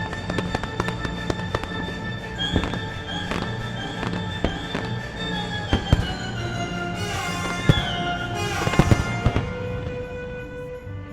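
Aerial fireworks bursting in quick succession, sharp bangs and crackle over a pyromusical soundtrack with held notes. The bangs come thickest about seven to nine seconds in, then thin out near the end while the music carries on.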